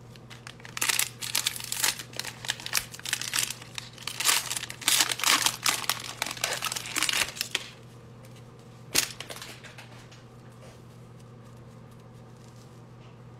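Foil wrapper of a 2020 Playoff football card pack crinkling as gloved hands pull it open and work the cards out, for about seven seconds, then one sharp click about nine seconds in. A steady low hum runs underneath.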